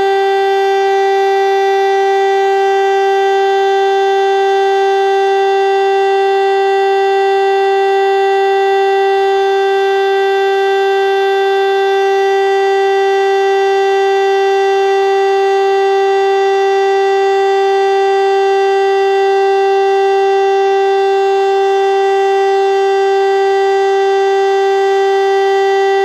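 DS977 rooftop electric motor siren sounding one loud, steady tone that holds its pitch without rising or falling: the continuous test signal of the monthly Czech siren test.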